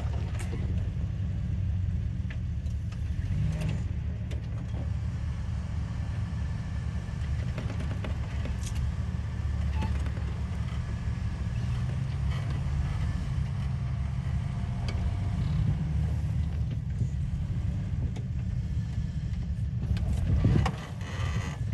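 Jeep Cherokee XJ's engine running low and steady as it crawls slowly down a rutted sandy wash, with a brief louder swell near the end.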